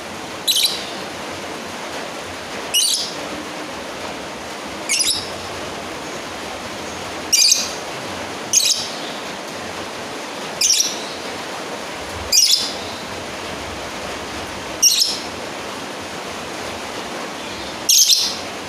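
Lovebird giving short, shrill calls, nine in all, about one every two seconds, in the calling-a-rival manner. A steady hiss runs underneath.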